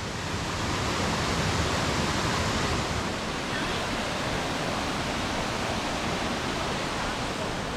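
Steady rush of water tumbling over a rainforest waterfall's cascades.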